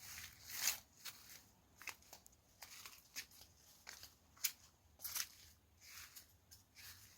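Irregular short, crisp crackles and rustles, one to three a second.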